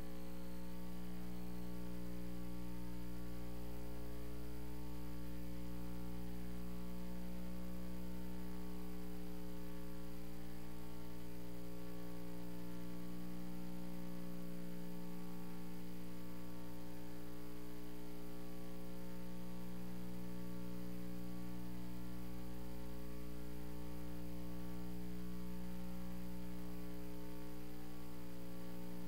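Steady electrical mains hum on the audio feed: a constant low buzz with a stack of overtones, unchanging throughout.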